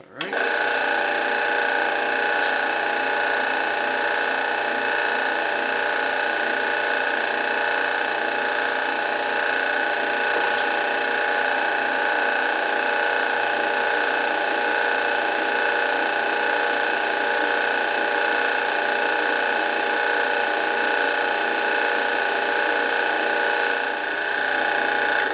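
Drill press running, drilling a hole into a Glock 32's steel pistol slide: a steady machine whine with several held pitches that starts and stops abruptly.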